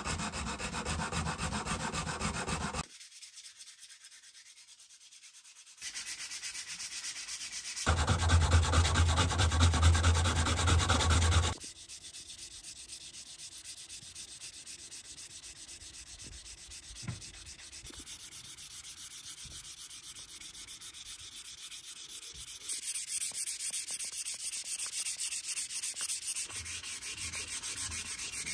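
Sandpaper rubbed quickly back and forth by hand along a wooden hammer handle, a steady rasping scrub. The level jumps abruptly several times between edited clips and is loudest about 8 to 11 seconds in.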